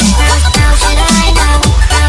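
Background electronic dance music with heavy bass and a steady, punchy drum beat.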